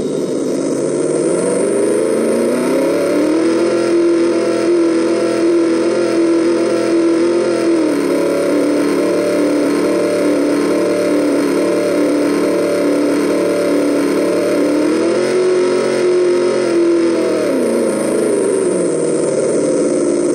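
Electronic engine-sound simulator in a scale RC 4x4 truck playing a steady engine note. The pitch shifts up and down in steps a few times, like the engine revving and settling.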